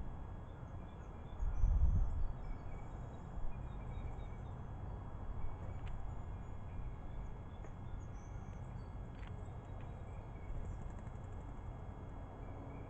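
Faint, short bird chirps scattered over a steady low rumble, with a louder low swell of rumble about two seconds in and a couple of brief clicks later on.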